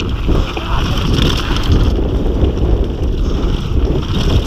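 Wind rushing over the camera microphone and the tyres rumbling and rattling over a loose dirt trail as a downhill mountain bike descends at speed. The noise is loud and steady.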